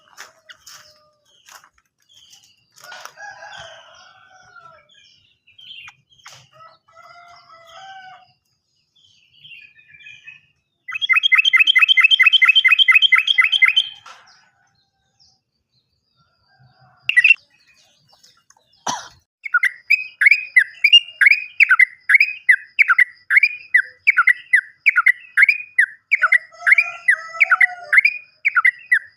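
Yellow-vented bulbul (trucukan) singing. Soft scattered calls give way to a loud, fast trill for about three seconds, then a long run of loud repeated falling notes, about three a second.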